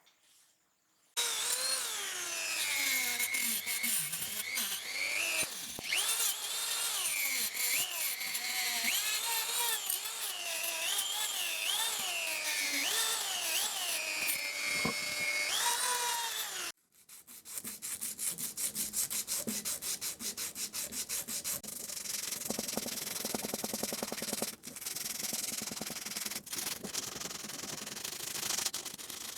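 Rubbing and sanding on a scale model car's parts. The first half is a squeal that wavers up and down in pitch. After a sudden cut, it gives way to fast, even rubbing strokes.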